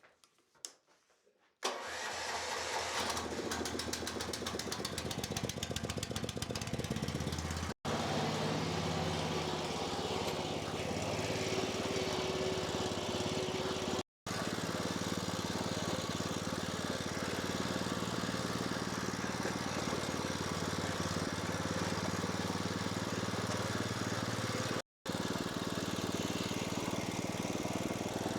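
A small petrol engine starts about two seconds in and keeps running steadily, cut off briefly three times.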